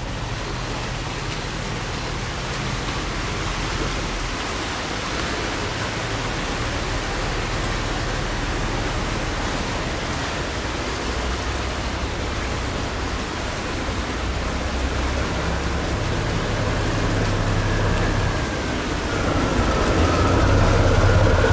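Steady rush of water pouring through a sluice gate, with a boat engine running underneath that grows louder over the last few seconds, its pitch rising.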